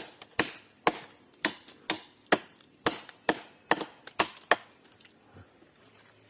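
Chopping strikes into the trunk of a keranji tree, about two a second, about eleven blows, stopping about four and a half seconds in. The tree is being opened or tested at a hollow where a stingless-bee (kelulut) nest is expected.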